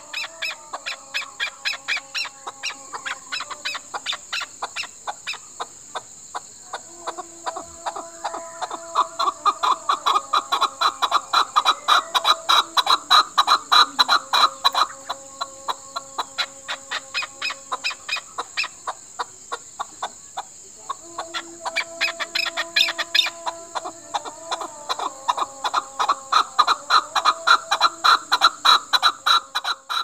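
Chukar partridge calling: a fast, steady series of clucking chuk notes, about four a second. The series swells louder twice, once around the middle and again near the end.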